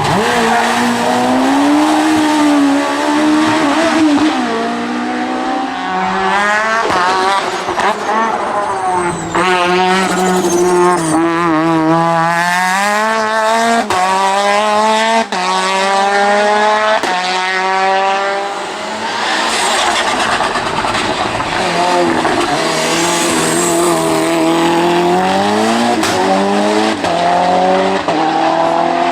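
Hill-climb race car engine at full throttle, its pitch climbing and dropping back with a rapid run of quick gear changes, then engine sound again after a brief lull.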